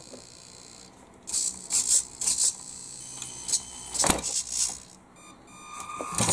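Small electric drive motor, gearbox and steering servo of a 1/16 RC truck whirring in short bursts as the throttle and steering are tried, with a sharp click about four seconds in and a steadier whine near the end. It is the first power-up test of the newly fitted hobby-grade speed controller, and the truck responds.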